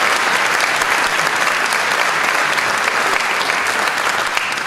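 A large theatre audience applauding, a dense and steady sound of many hands clapping.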